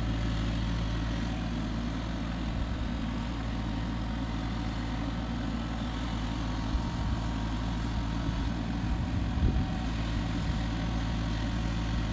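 Kubota mini excavator's diesel engine running steadily while the boom swings and lowers a large corrugated plastic pipe onto a trailer, with a few light knocks about seven and nine seconds in.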